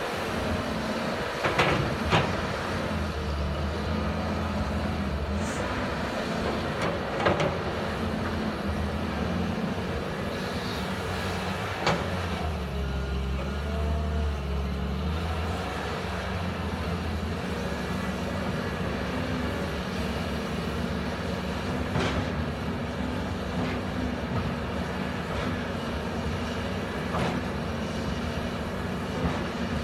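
CAT 320D tracked excavator's diesel engine running steadily, its drone swelling and easing with the load as it digs and loads soil. A wavering whine comes in about halfway through, and a few sharp knocks are scattered through.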